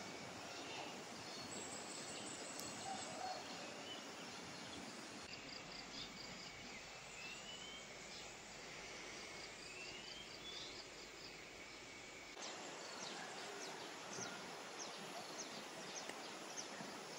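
Faint outdoor ambience: a steady hiss with scattered high chirps, short rising whistles and ticks from birds and insects. The background changes abruptly twice, as between separate recordings.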